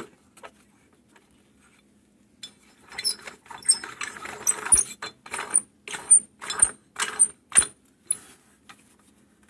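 Metal flagpole ball finial being screwed back onto its threaded rod: a run of short metal clicks and scrapes, roughly two a second, some with a faint high ring, starting a few seconds in.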